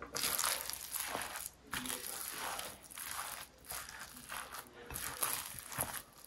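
Sticky minced-pork dumpling filling with diced jicama and wood ear mushroom being stirred and mashed with a spatula in a glass bowl, close up for ASMR: a run of irregular wet crinkling, crunching strokes, one or two a second.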